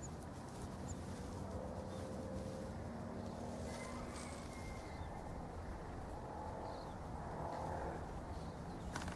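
Outdoor ambience: a steady low rumble of wind on the microphone, with a few faint, brief distant bird calls.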